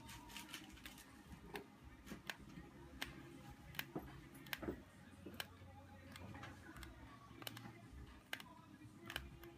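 Faint, irregular clicks and creaks from a copy iPhone 6 replacement screen as fingers press and flex it in the frame: the squeak of a poorly built copy screen.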